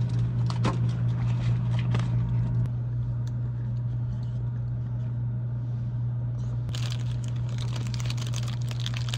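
Crinkling and rustling of handled packaging with scattered clicks, over a steady low hum; the crinkling gets busier about seven seconds in.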